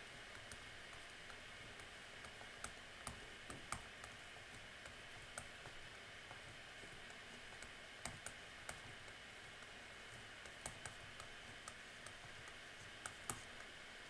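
Faint, irregular clicks and taps of a stylus on a tablet screen while an equation is handwritten, over a low steady hiss.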